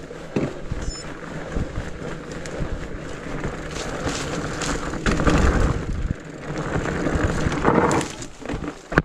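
Rigid fat bike rolling over a rocky trail: knobby tyres rumbling and the bike knocking and rattling over rocks, with two rougher, louder stretches about five seconds in and near the eight-second mark.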